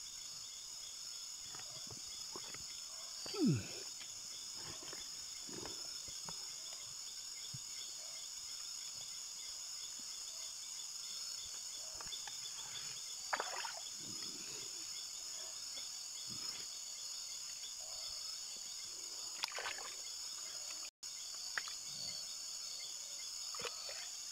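Night insects chirring in a steady, continuous high chorus, with scattered small splashes and scrapes as a hand gropes in a flooded crab hole in the creek bank. A short falling sound about three and a half seconds in is the loudest moment.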